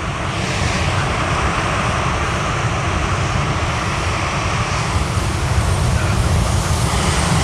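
Steady roar of sea waves breaking and washing over rocks, with a heavy low rumble underneath.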